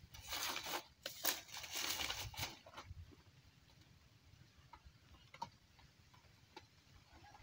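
Rustling and handling noise from a mesh net bag and a plastic tube snake trap for the first few seconds, with a sharp click about a second in. After that it is quieter, with a few faint clicks and taps as the trap's wire and mesh end are worked.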